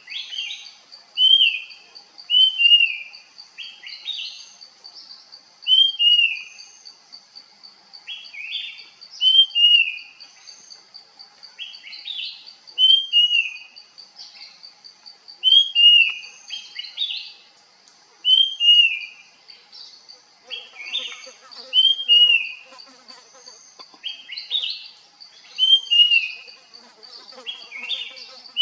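Puff-throated babbler calling: short whistled notes that slur downward, in twos and threes, repeated every couple of seconds and mixed with harsh rasping notes. A steady high insect trill runs underneath.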